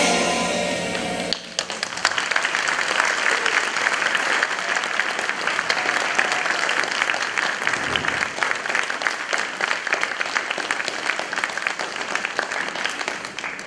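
Audience applause that breaks out about a second in, as the last of the music dies away, and carries on steadily before tailing off near the end.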